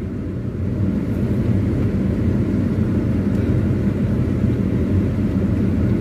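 Car driving slowly along a dirt forest road with its windows open, heard from inside the cabin: a steady low rumble of engine and tyres.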